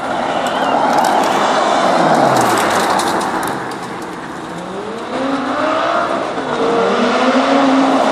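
Sports cars driving off one after another: first a car passes with a loud rush of engine and tyre noise, its note dropping in pitch as it goes by. Then, about five seconds in, a Lamborghini's engine revs up, rising in pitch, and holds its note as it pulls past.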